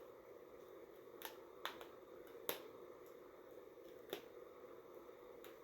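Faint handling noise from fiddling with hair and hair bows: about five scattered soft clicks and taps over a steady low room hum.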